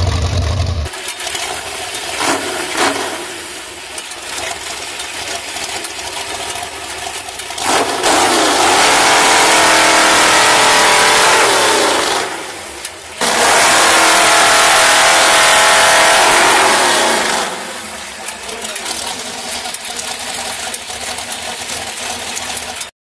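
4.1-litre V8 engine of a giant chainsaw running. About eight seconds in it revs up to full throttle and holds for about four seconds, drops briefly, then runs at full throttle again for about four seconds before falling back to a lower level.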